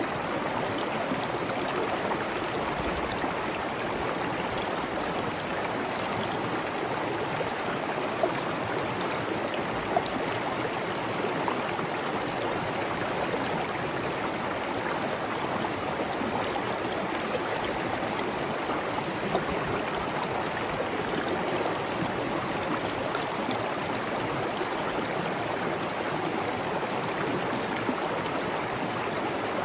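Waterfall: steady, even noise of falling, splashing water, with a few brief louder splashes.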